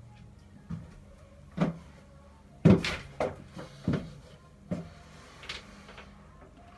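A series of about seven irregular knocks and clunks, the loudest a little under halfway through, over a faint steady hum.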